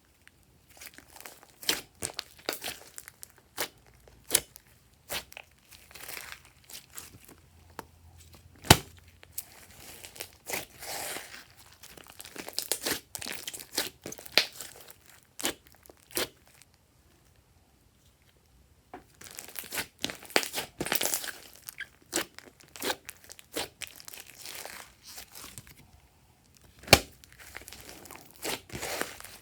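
Glossy slime being pressed and stretched by hand: irregular sticky pops and crackles, with a lull of a few seconds past the middle.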